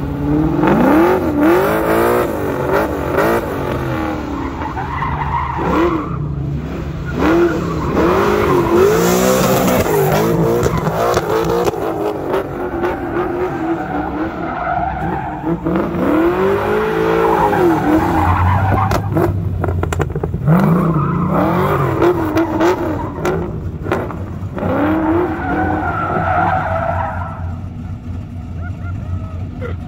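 Muscle car on an autocross course, its engine revving up and down again and again as it accelerates and brakes between corners, with tyres squealing through the turns. The engine eases off near the end.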